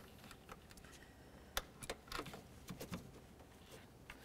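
Faint handling noise: a few short clicks and taps as pliers hold a spring hose clamp while a rubber hose is pushed onto its fitting.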